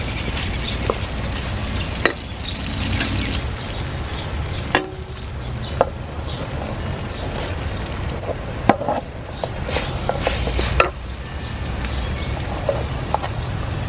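Tomato base frying and sizzling in oil in a metal pot while a wooden spoon stirs and scrapes it, with several sharp knocks against the pot. Partway through, sliced okra is tipped into the pot from a wooden bowl.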